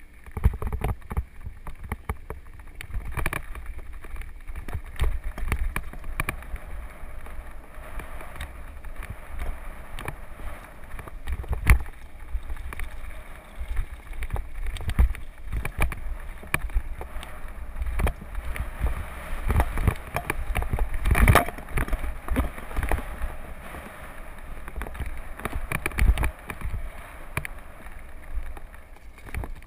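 Mountain bike riding fast down a rough gravel and dirt trail, heard from a camera mounted on the bike: tyres crunching over loose stones with frequent knocks and rattles over bumps, the hardest hits about twelve and twenty-one seconds in, over a steady low wind rumble on the microphone.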